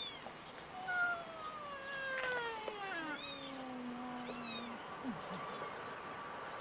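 Kittens mewing: several short, high, arched cries, with one long cry that slides steadily down in pitch from about a second in.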